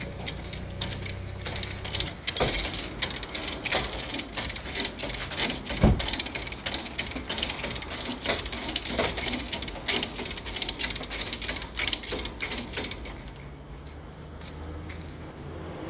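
Lever chain hoist ratcheting in a rapid string of clicks as its handle is pumped, drawing the chain tight on a car's crushed rear body to pull the damage out. A single heavy thump about six seconds in, and the clicking stops a couple of seconds before the end.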